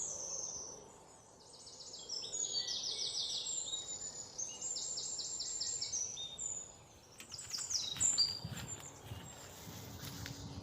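Birds singing in fast, high chirping trills that come in bursts of about a second. About seven seconds in, a run of sharp knocks and clatters joins them.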